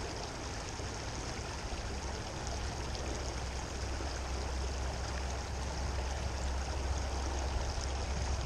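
Shallow creek water rippling steadily over rocks in a riffle, with a low rumble underneath.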